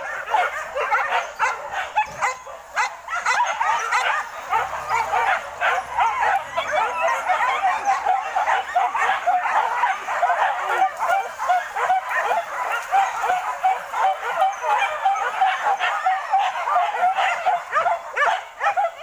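A pack of leashed hunting dogs yelping and barking excitedly, many short high calls overlapping without pause.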